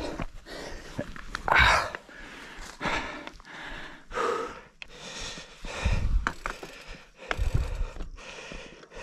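A mountain biker panting hard, loud gasping breaths coming roughly once a second.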